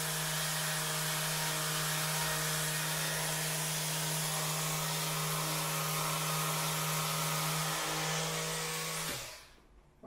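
Rapid Release Pro 2 handheld vibration therapy device running against a person's back: a steady electric buzz at one even pitch. It switches off about nine seconds in.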